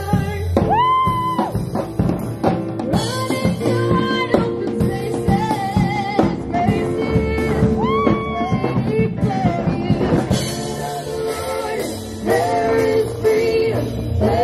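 A woman singing live into a microphone over a drum and bass accompaniment, amplified through a loudspeaker. She holds long notes, sliding up into some of them.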